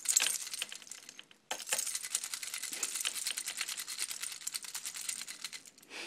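Keys on a carabiner jingling and clinking as they are shaken. There is a sharp clatter at the start, a brief pause about a second and a half in, then quick, steady jingling.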